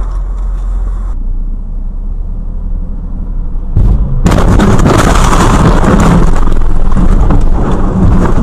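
Car on the road, a low steady rumble of road and engine noise. About four seconds in, a sudden loud, rough noise starts and keeps going for several seconds.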